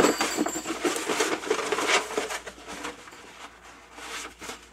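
Rustling and rubbing of a large paper poster being handled, busiest in the first couple of seconds and then fainter.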